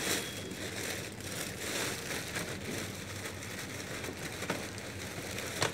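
Travelator drive machinery running with a steady mechanical noise and a low hum, and one sharp click near the end.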